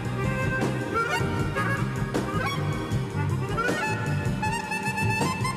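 Background instrumental music with a steady repeating bass line and a lead melody that slides up between notes.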